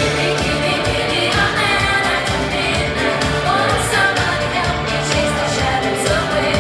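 Pop song playing with a singing voice over a steady beat.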